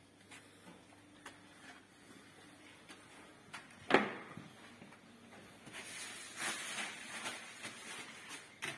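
Kitchen handling noises: a few light clicks, a single sharp knock about four seconds in, then a couple of seconds of uneven rustling and scraping.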